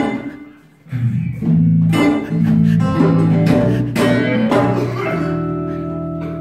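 Small live acoustic band with guitars and a bass guitar. A sharp accented hit is followed by a brief near-silent break. The band then comes back in with low bass notes, strummed chords and a few percussive hits, and ends on a held chord.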